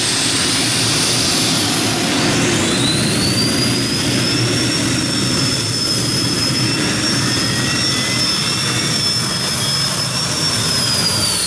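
Modified-class pulling tractor under full power during a pull, a dense, steady engine noise with a high whine that rises about two and a half seconds in, holds, and drops away at the end.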